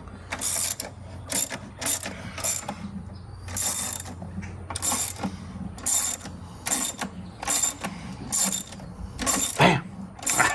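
Hand socket ratchet clicking in a long run of short, quick strokes, about one or two a second, as a tight bolt is worked loose.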